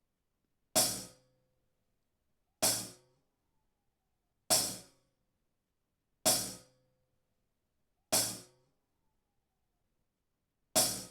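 Recorded hi-hat struck six times, roughly every two seconds, each hit a bright, short metallic splash that dies away quickly. It is played back soloed as an example of an unpitched sound.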